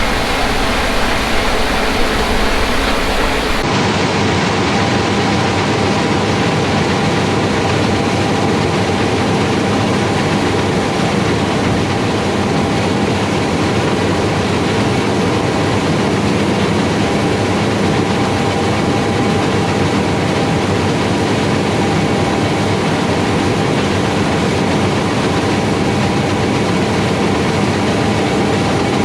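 Heavy harvest machinery running steadily at working speed, a continuous machine drone with faint steady whining tones. About four seconds in, the sound changes abruptly from a wind-like rumble to this drone.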